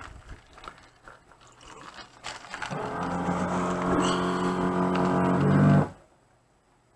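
A steady low droning tone from a horror film's soundtrack swells louder for about three seconds, then cuts off suddenly.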